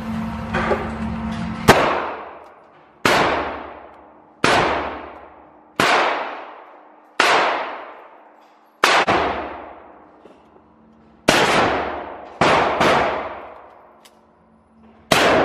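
Single gunshots in an indoor shooting range, ten of them, each sharp crack followed by a long echoing decay, coming about every one to two seconds, with two in quick succession near the end.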